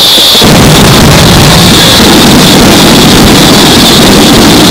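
Rapid-fire barrage of aerial fireworks shells bursting so densely that the reports merge into one continuous loud rumble, with no separate bangs standing out. It swells about half a second in.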